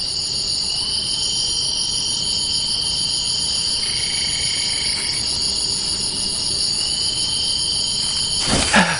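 Steady chorus of rainforest insects: several high, shrill tones held without a break, with another voice joining about a second in and again near the end. A sudden louder noise breaks in just before the end.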